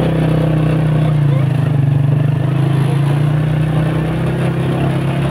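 Vehicle engine running at a steady pitch while driving along a gravel road, with road and wind noise.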